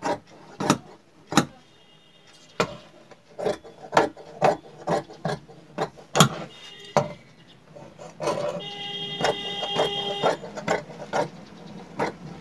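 Large steel tailoring scissors cutting through folded cotton cloth, a sharp snip about twice a second as the blades close. For a couple of seconds past the middle, a steady high whine sounds along with the snips.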